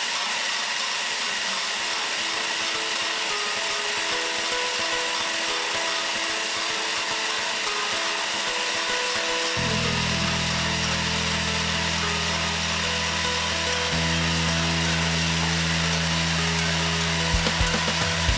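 Oregano rubbing and sieving machine running: a steady mechanical noise from its motor and perforated sieve tray. A deeper steady hum comes in abruptly about halfway through, and a few knocks sound near the end.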